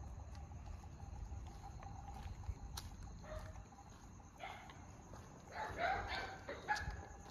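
Street dogs barking in short bursts: one about three seconds in, another at four and a half, then a louder run of barks near six seconds.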